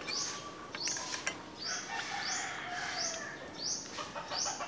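A bird repeating a short, high chirp over and over at an even pace, about six calls in under five seconds, with a few faint clicks between them.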